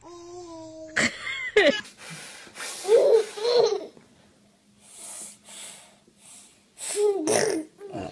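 A baby laughing in a series of short, breathy, wheezy bursts, some with voice in them.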